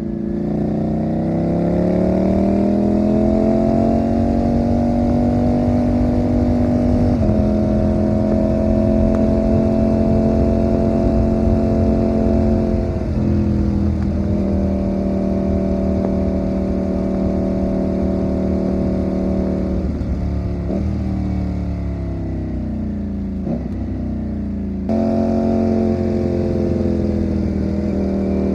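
Ducati Panigale V4 motorcycle's V4 engine under way: it pulls up in pitch over the first few seconds, then holds a steady note, with several sudden changes in pitch as the rider shifts and rolls on and off the throttle.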